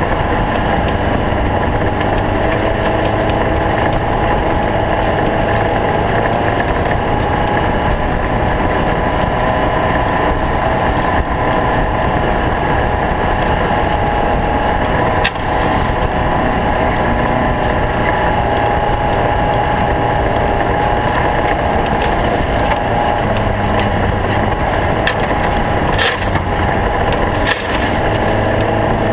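Engine of a small stock bug race car running steadily at speed, its pitch shifting only a little, with wind noise over it.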